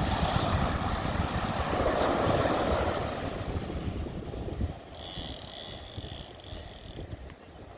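Wind buffeting the microphone over the wash of surf, loudest in the first half. About five seconds in, a brief high-pitched pulsing sound comes in for around two seconds.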